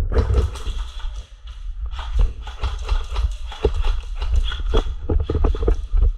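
Irregular sharp clicks and knocks, several a second, over a heavy low rumble on the microphone.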